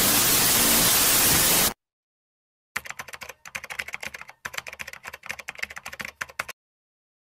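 A loud burst of static hiss that cuts off suddenly after under two seconds, followed by rapid computer-keyboard typing clicks lasting about four seconds, a typing sound effect for on-screen text.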